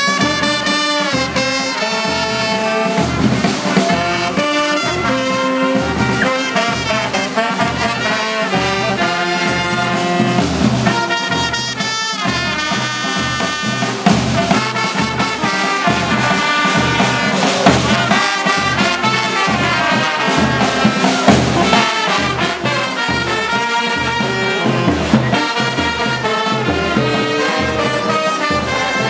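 Instrumental band music with brass carrying the melody over a steady bass beat of about two beats a second.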